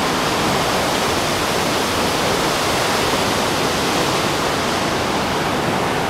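Peguche waterfall: a tall waterfall crashing into its gorge in a steady, loud rush of white noise that does not change.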